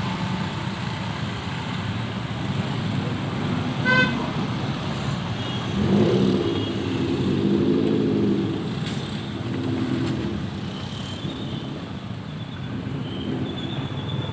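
Road traffic running past a railway level crossing. A short horn beep comes about four seconds in, then a longer, louder horn with several tones from about six to ten seconds.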